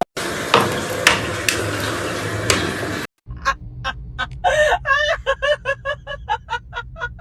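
About three seconds of steady noise broken by a few sharp clicks, then, after a brief drop-out, an animal giving a rapid series of short pitched calls, about three to four a second, with one longer call in the middle of the run.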